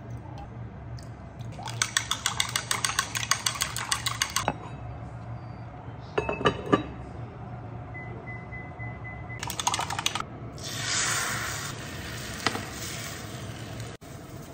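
Eggs beaten in a glass measuring jug, a quick run of clinks against the glass, followed by a few more clinks. Then an induction hob beeps once, a steady tone of about a second and a half, and egg mixture hits a hot rectangular tamagoyaki pan with a sizzle that swells and fades.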